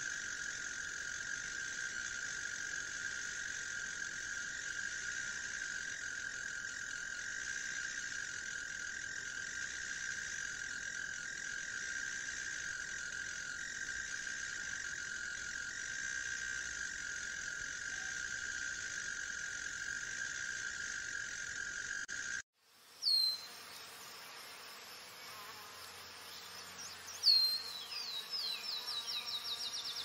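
Steady insect chorus, a continuous shrill drone, which cuts off abruptly about 22 seconds in. Then sharp, falling bird chirps: one loud chirp, and near the end a quick run of them, several a second.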